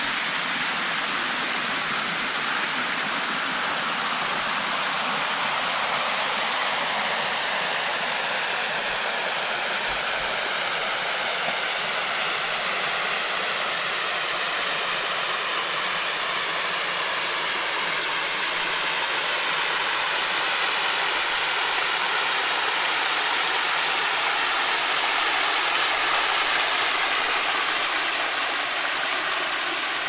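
Steady rush of flowing water from a stream or waterfall: an even, hissing noise that swells slightly about two-thirds of the way through.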